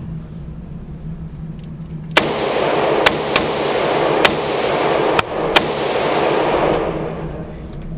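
Gunshots on an indoor pistol range: six sharp cracks at uneven intervals over about three and a half seconds, set in a loud continuous rushing noise that starts suddenly with the first shot and fades out about five seconds later.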